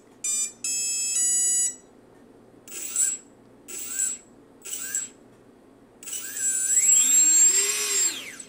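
A brushless motor's electronic speed controller sounding its start-up beeps, a short tone and then a longer one, followed by three short rising chirps about a second apart. Then the small brushless DC motor spins up with a rising whine and winds down near the end.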